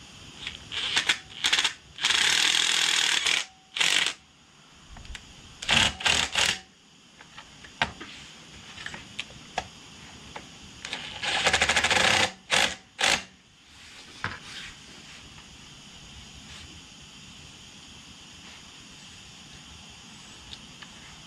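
Cordless impact driver hammering in short bursts as it tightens the recoil starter's mounting bolts on a Kohler XT6.5 mower engine. There are about seven runs, the longest about a second and a half. They stop about two-thirds of the way through, leaving only a faint steady background.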